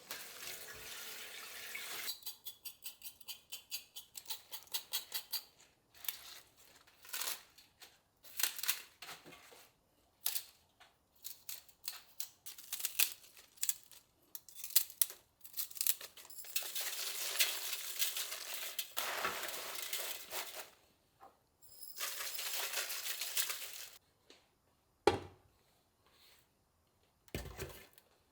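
Kitchen food-preparation sounds: clinks and knocks of utensils and dishes, a quick run of regular clicks near the start, and several stretches of steady hissing noise.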